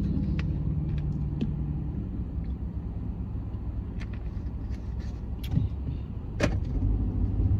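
Car cabin noise while driving: a steady low road and engine rumble, with a few light clicks and one sharper knock about six and a half seconds in.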